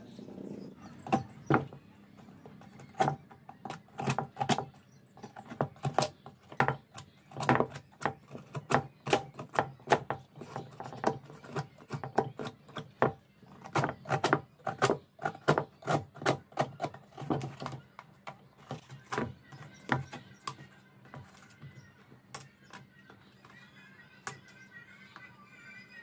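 Many sharp, irregular knocks and cracks as a fibreglass baluster mould is worked loose from its concrete casting, over background music.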